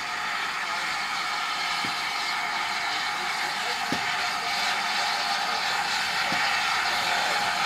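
GWR 5101 class Large Prairie 2-6-2 tank locomotive No. 4160 giving off a steady hiss of steam, growing slowly louder, with a few faint knocks about every two seconds.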